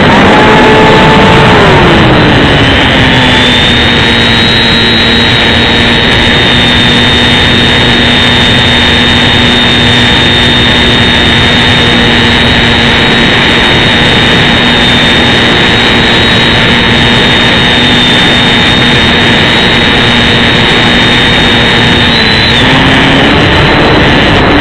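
Electric motor and propeller of an XK A600 DHC-2 Beaver RC plane in flight, heard loud and close from a camera mounted on the plane, with a high whine over rushing air. The motor's pitch drops about two seconds in, holds steady, rises briefly near the end, then drops again.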